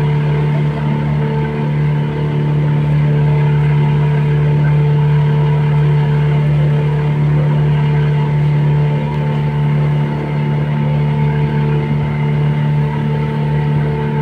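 A passenger boat's engine running steadily under way, heard from on board: a loud, even drone that holds one pitch throughout.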